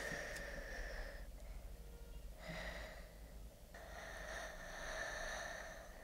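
Soft, breathy whooshing from a person's mouth in three long swells, each fading out: a sound standing in for the sea heard in a seashell held to the ear.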